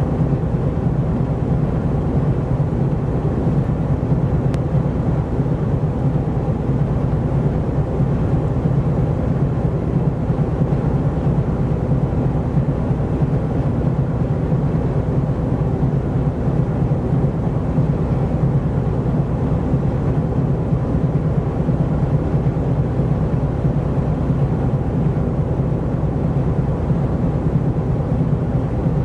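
Steady low rumble of a large container ship under way, unchanging throughout.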